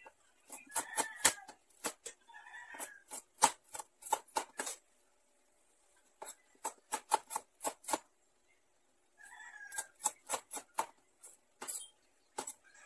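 Cleaver chopping red onion on a wooden cutting board: quick runs of sharp knocks, about four a second, broken by short pauses.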